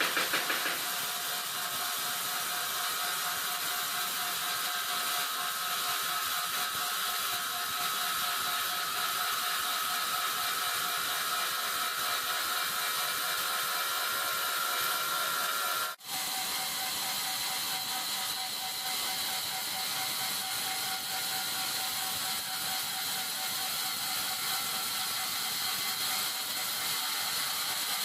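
Large sawmill saw machinery running steadily, a continuous mechanical hiss with a held whine. About halfway through the sound breaks off abruptly and picks up again at a slightly different pitch.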